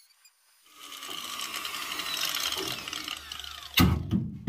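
Angle grinder with a cutoff wheel cutting through the sheet-steel firewall of a 1948 Ford truck. The cutting starts about a second in, the grinder winds down with a falling whine, and then come two loud clunks of metal near the end.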